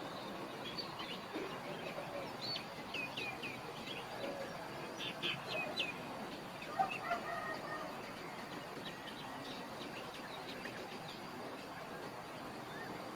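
Small birds chirping outdoors in short runs of quick high chirps, about two and a half and five seconds in, with a chicken's lower call about seven seconds in, over steady outdoor background noise.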